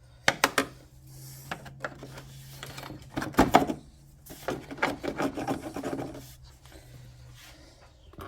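Hands working on car parts: sharp clicks and knocks about half a second in and again a little past the middle, with rubbing and scraping, over a steady low hum.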